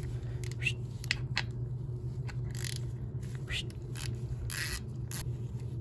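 Hand ratchet with an Allen bit clicking and rasping in short, irregular bursts while backing out the primary inspection cover screws, over a steady low hum.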